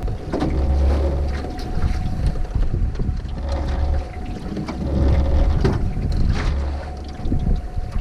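A fishing boat's motor running at trolling speed, with a steady hum under heavy wind buffeting on the microphone and scattered knocks of water against the hull.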